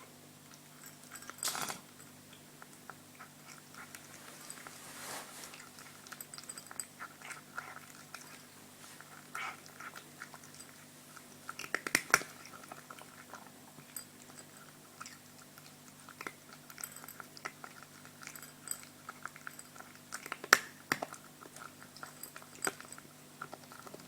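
A cat eating: irregular wet chewing and crunching with frequent short clicks of its teeth, some of the bites louder than the rest.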